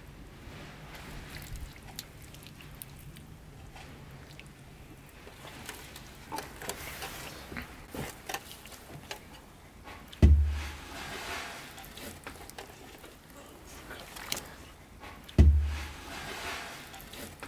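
Hands smearing a wet spice marinade over a split fish on a steel tray: soft wet squelches and small clicks, with two dull thumps about five seconds apart, the first about ten seconds in.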